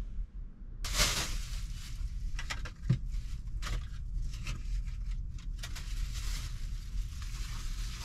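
Crackling and rustling of an instant oatmeal packet being handled and torn open, with a few short clicks, over a steady low rumble of strong wind buffeting the camper.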